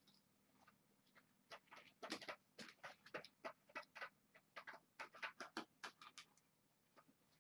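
Faint, irregular clicks and scrapes of stiff posterboard being handled and fitted against a wire fence, starting about a second and a half in and stopping about six seconds in.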